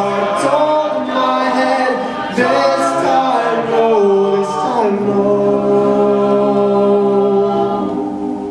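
An a cappella vocal group singing the song's closing line with no instruments, the voices moving for about five seconds and then settling on a held final chord that fades out near the end.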